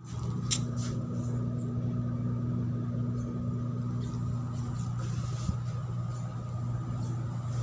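Ship's machinery running with a steady low drone and a fainter high steady tone above it, with a few light clicks near the start.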